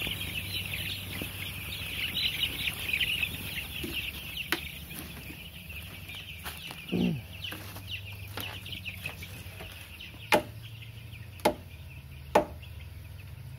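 A flock of seven-day-old broiler chicks peeping, a dense chorus in the first few seconds that then thins out, over a steady low hum. One short falling call comes about halfway, and three sharp clicks near the end.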